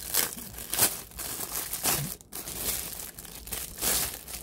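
Thin clear plastic wrap crinkling as it is pulled off a plastic phone holder by hand, in a run of irregular crackles, loudest in the first second and again near the end.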